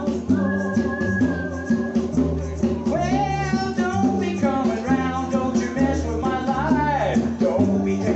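Live gospel band music: a lead voice singing long notes with vibrato over a stepping bass line, with a shaker keeping time.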